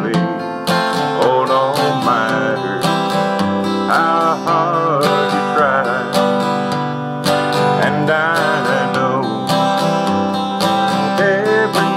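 Acoustic guitar strummed in a steady country rhythm, with a held, wavering melody line over it.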